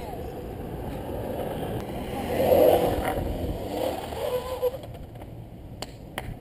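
Longboard wheels rolling fast down an asphalt road, a steady rushing noise that swells louder about two and a half seconds in and dies down toward the end.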